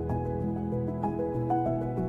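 Background music: soft, gentle instrumental notes with no speech.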